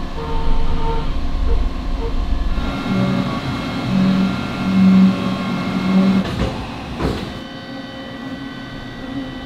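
CNC milling machine's end mill cutting a metal workpiece under flood coolant: a steady spindle and cutting whine of several held tones over a low rumble. A sharp click comes about seven seconds in.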